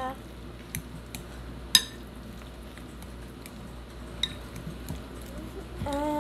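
Metal potato masher mashing avocados in a glass bowl: soft squishing with a few sharp clinks of metal on glass, the loudest about two seconds in. A brief steady hum comes in near the end.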